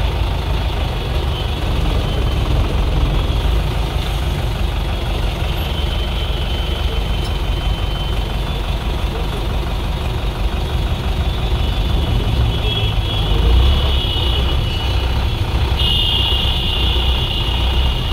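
Engine rumble and road noise heard from inside a vehicle driving in city traffic, with a long high steady tone starting near the end.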